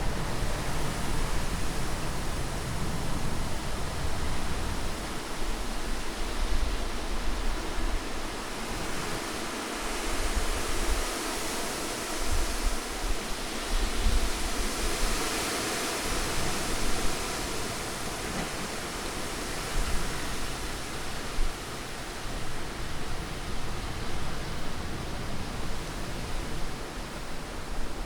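Continuous rushing noise of a sleep-aid masking-sound track, with a low rumble that fades through the middle and a hiss that swells for several seconds before easing again.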